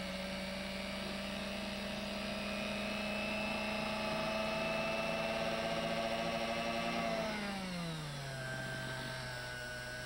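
Small clockmaker's lathe motor running with a steady whine while the pivot is burnished. About seven seconds in, the lathe slows: its pitch falls smoothly and settles lower.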